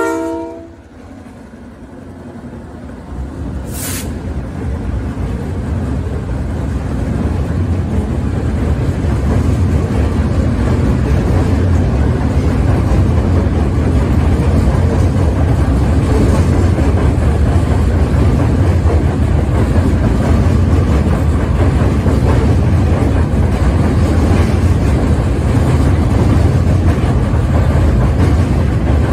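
Freight train of covered hopper cars rolling across a steel truss bridge: a steady low rumble that builds over the first few seconds and then holds. The tail of a locomotive horn cuts off at the very start.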